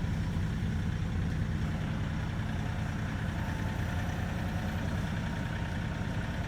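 A vehicle engine running steadily at low speed, a low rumble.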